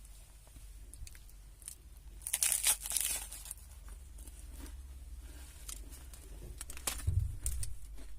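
Plastic snack wrapper crinkling and tearing, in a loud rustling burst a couple of seconds in and again near the end, with a soft low thump of handling near the end.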